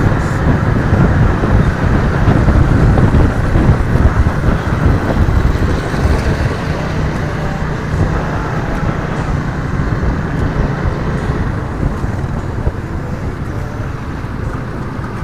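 Riding noise on a Suzuki Raider 150 FI motorcycle: a steady rush of wind and road noise on the camera microphone, with the single-cylinder four-stroke engine running underneath at town speed. The rush eases slightly in the second half.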